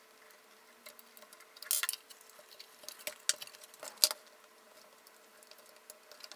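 Faint scattered crackles and small clicks from desoldering electrolytic capacitors on a double-sided circuit board: a soldering iron tip working the solder joints while the board is handled and the capacitor leads are bent, with a sharp click a little after four seconds.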